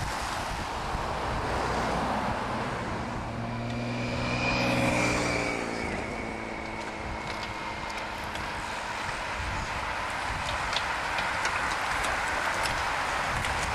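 Steady wind noise with a motor vehicle's engine passing by and fading, about three to six seconds in. Later, light sharp ticks as the bunch of racing bicycles rides past.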